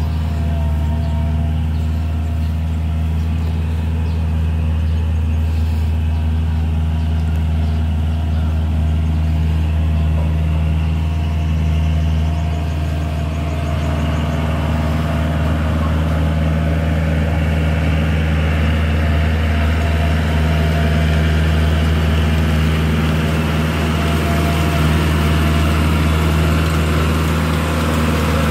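Tractor engine running steadily with a rotavator, a deep, even drone that grows a little harsher about halfway through.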